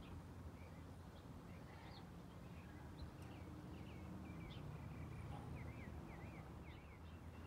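Small songbirds chirping in quick repeated rising-and-falling notes, thickest from about three seconds in, over a faint low steady rumble.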